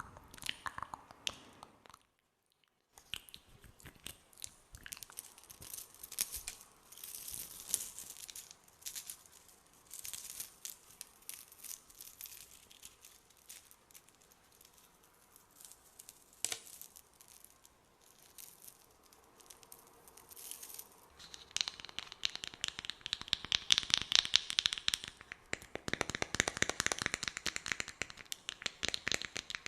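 Close-miked ASMR sounds: soft, sticky clicks and crackles with a short gap near the start, then a dense, fast run of crackling taps over the last third.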